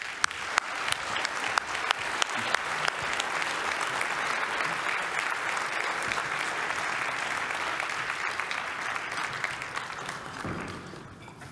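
Audience applauding, with a few sharp claps close to the microphone at the start; the applause builds over the first couple of seconds, holds, then dies away near the end.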